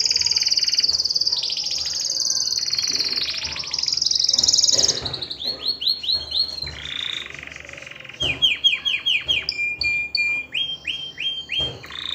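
Male domestic canary singing a continuous song of rapid high trills and rolls, then runs of repeated downward-sweeping notes about five a second in the second half.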